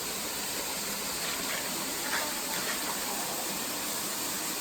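Waterfall rushing steadily: an even wash of falling water.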